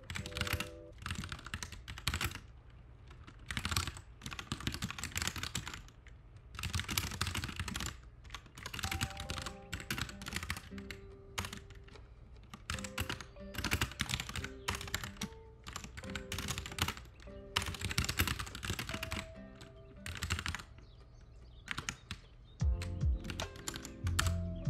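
Computer keyboard typing in quick bursts of keystrokes with short pauses between, over soft lo-fi background music.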